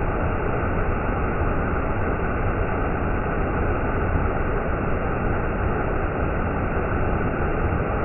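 Waterfall cascading over stepped rock ledges: a steady, unbroken rushing of water, dull and deep with no high hiss.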